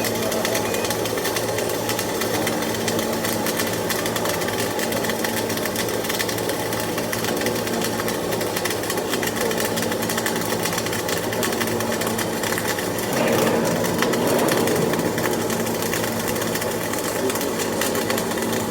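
Electric arc welding on a steel test plate: a steady, dense crackle and sizzle of the arc with a low steady hum underneath, getting louder for a couple of seconds about two-thirds of the way in.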